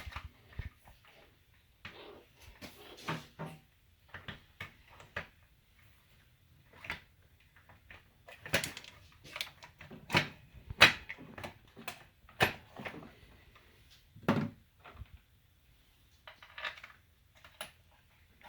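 Irregular clicks, taps and knocks of small plastic and metal valve parts being handled and fitted by hand. They are loudest in the middle, with a duller thump near the end.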